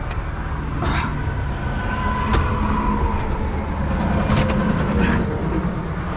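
Steady low rumble of heavy vehicles and highway traffic, with a few short, sharp clicks scattered through it.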